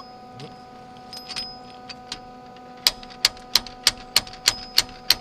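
Sharp metallic taps, a few scattered at first and then an even run of about three a second from about three seconds in, over a steady electrical hum.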